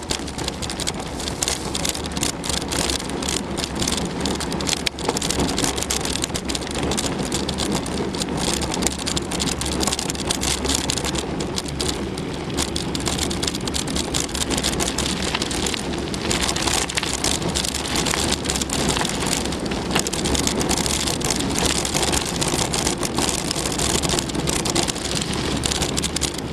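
Mountain bike being ridden along a damp woodland trail: steady crackle of tyres on the wet track with constant fine rattling from the bike.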